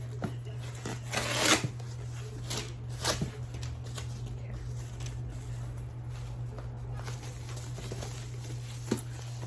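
Rustling and handling of a handbag's wrapping and dust bag during unpacking, in irregular bursts, the loudest about a second and a half in and another near three seconds, with a few light clicks, over a steady low hum.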